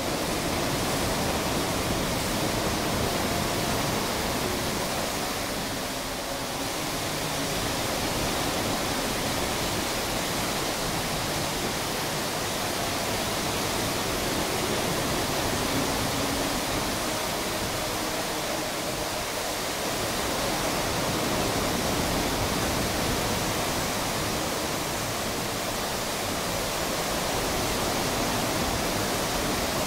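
The Rain Oculus, a giant acrylic bowl whose water spirals down through its centre as a waterfall into the pool below, pouring with a steady rushing splash.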